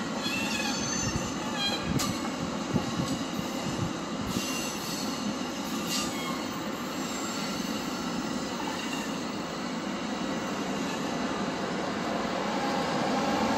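Exo commuter train rolling on the rails, its wheels squealing in thin high tones over the first few seconds, with a few sharp clicks from the wheels over the steady rumble.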